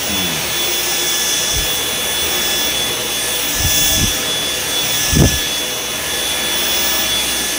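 Dyson V10 cordless stick vacuum running steadily with a high motor whine as its cleaner head is pushed over carpet tiles. There are a few dull knocks, the loudest about five seconds in.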